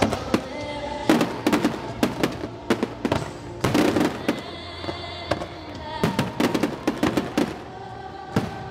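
Aerial fireworks shells bursting in quick clusters of sharp bangs, with music playing under them.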